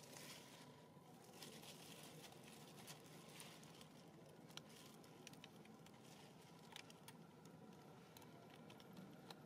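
Near silence: a faint hiss with scattered small clicks and rustles.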